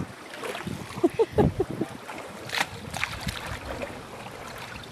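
Shallow lake water lapping at a sandy shore, with a quick run of short high-pitched vocal sounds a little over a second in.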